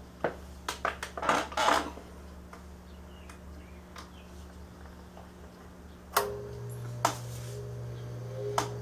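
A 1959 Lasko 20-inch oscillating box fan's motor humming steadily, with a run of sharp metallic clicks and rattles in the first two seconds. About six seconds in a click comes, and the hum turns deeper and stronger with a higher tone over it; two more single clicks follow.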